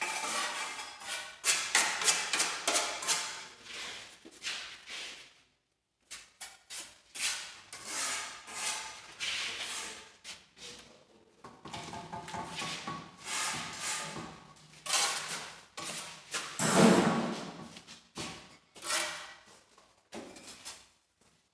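A run of irregular knocks and clatters, broken by a few short pauses.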